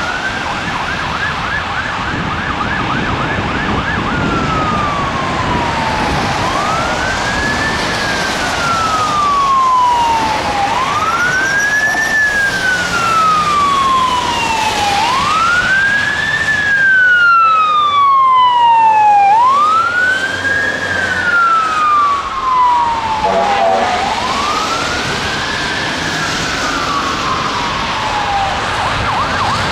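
Fire truck siren, first a fast yelp for about four seconds, then a slow wail that rises quickly and falls slowly, repeating about every four seconds, over the hiss of traffic on a wet road.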